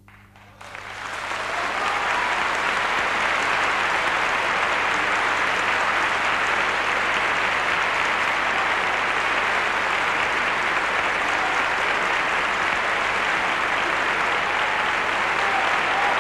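Concert audience breaking into applause about half a second in, swelling within a couple of seconds to steady clapping.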